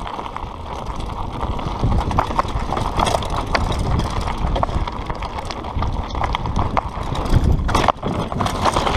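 Mountain bike descending a loose gravel trail at speed: tyres crunching over stones, the bike rattling and clattering over bumps, with wind rumbling on the handlebar-mounted camera's microphone.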